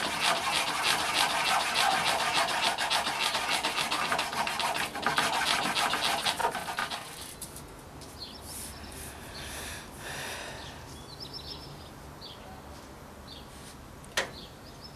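A file rasping quickly back and forth on the rattan bow, cutting the groove that will hold the string, for about seven seconds before it stops. Faint bird chirps follow, with a single click near the end.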